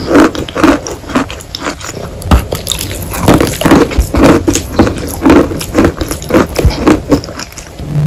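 Close-up chewing of a mouthful of wet chalk: soft, pasty squishing in a steady rhythm of about two to three chews a second.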